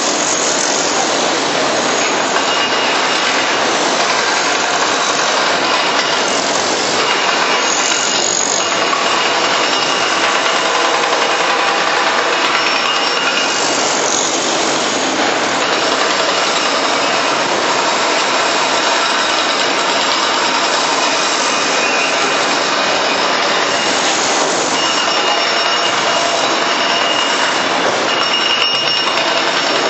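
Steady mechanical din of a tracked hydraulic excavator's diesel engine and hydraulics working as it loads soil into a dump truck, with faint high-pitched whines coming and going.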